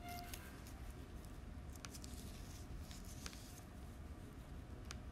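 Faint room tone with a low hum and a few scattered soft clicks and taps.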